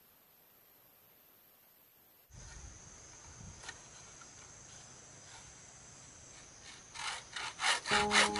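Near silence for about two seconds, then faint background noise after a cut. In the last second and a half comes a run of quick rasping strokes from a hand tool working material, about five a second, and music comes in near the end.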